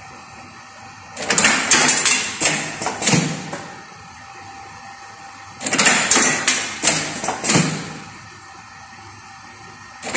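Automatic lead-bullet casting machine cycling: twice, about every four and a half seconds, a two-second burst of metallic clacking and knocking as the mould carousel indexes, with a steady machine hum in between. A third burst starts right at the end.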